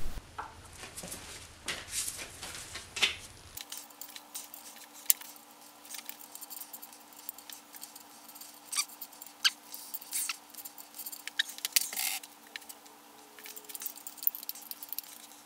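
Socket ratchet clicking in short runs, with light metal clinks of the tool and bolts, as the bolts holding a BMW M54B30 camshaft sprocket are undone.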